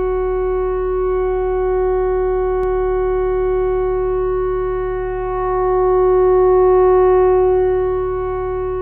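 Theremin holding one steady note, swelling louder for a couple of seconds past the middle before easing back.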